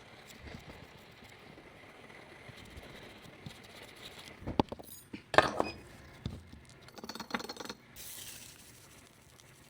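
Scattered small clicks, taps and clinks of tools and small parts being handled, in an irregular cluster with the loudest knock about five and a half seconds in.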